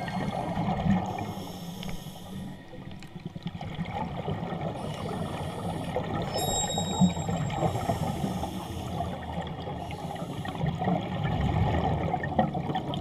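Underwater sound of a scuba diver's regulator: exhaled bubbles gurgling and rumbling, with a short lull about three seconds in.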